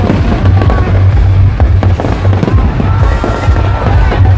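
Aerial fireworks display with shells bursting in a rapid, irregular run of sharp pops and crackles over a continuous low rumble.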